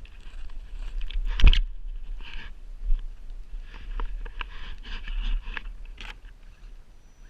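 Steady low rumble of wind on the microphone, with irregular crunching and scraping sounds and one loud knock about a second and a half in.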